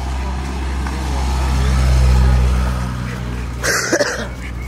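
A motor vehicle's engine passing close by: a low, steady rumble that swells to a peak about two seconds in and then fades. A short, sharp hissing noise comes near the end.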